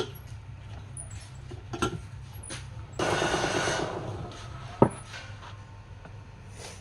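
Workshop sounds over a steady low hum: several sharp knocks, the loudest about five seconds in, and a rushing, scraping noise lasting about a second just after the midpoint.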